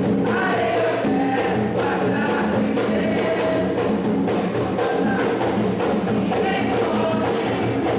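A mixed group of women and men singing a devotional Umbanda song (ponto) together, accompanied by atabaque hand drums played in a steady rhythm.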